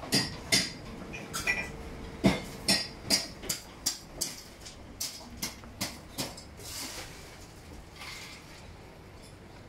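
Dishes and cutlery clinking and knocking: a run of irregular sharp clinks, busiest in the first six seconds and thinning out after.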